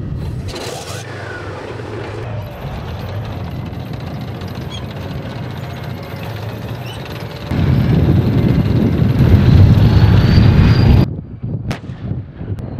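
T-72B3 tank's diesel engine running as the tank drives the course. It grows much louder from about seven and a half seconds in and cuts off abruptly at about eleven seconds. A single sharp crack follows near the end.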